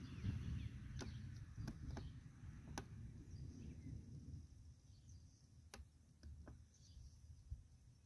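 Quiet garden ambience: a low rumble on the microphone, heavier in the first half, with faint bird chirps and several light clicks scattered through.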